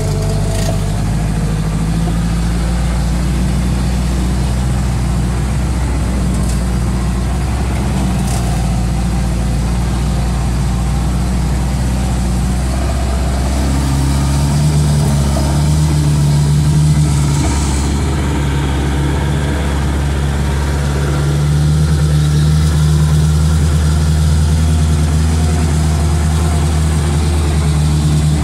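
Engine of a small Mitsubishi bus heard from inside the cabin as it drives along a rough dirt road. Its note changes and grows stronger about halfway through.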